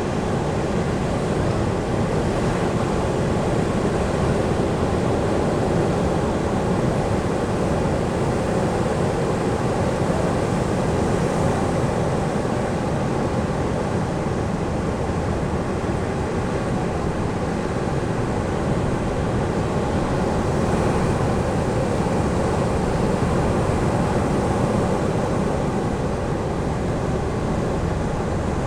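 Ocean surf on a beach: a steady rush of breaking waves that swells slightly now and then.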